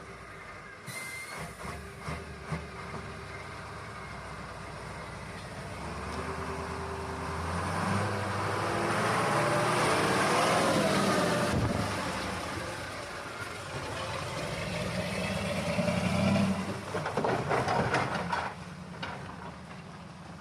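KamAZ heavy diesel truck engine running under load as the truck moves off. Its note rises and swells to its loudest about ten seconds in, falls away, then surges again near sixteen seconds.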